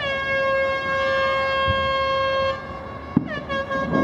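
A horn blown twice: a long, steady note that dips slightly in pitch as it starts and holds for about two and a half seconds, then a shorter note after a sharp click about three seconds in.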